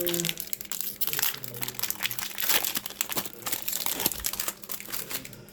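Plastic booster-pack wrapper of Magic: The Gathering cards crinkling as it is handled and torn open, a dense run of small crackles.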